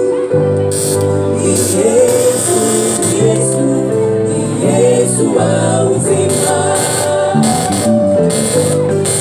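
Live gospel worship music: a male lead and female backing singers singing into microphones over sustained electric keyboard chords, heard through a PA system.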